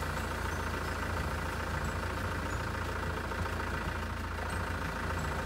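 Land Rover Discovery 1's 200Tdi four-cylinder turbodiesel running steadily as the vehicle creeps along a dirt trail, heard from inside the cab as a constant low drone.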